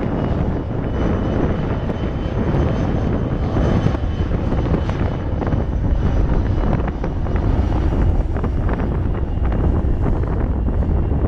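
Twin General Electric CF34 turbofans of a Bombardier Challenger 601 business jet at takeoff power as it accelerates past on its takeoff roll: a steady jet roar with a thin high fan whine in the first half. A low wind rumble on the microphone grows stronger near the end.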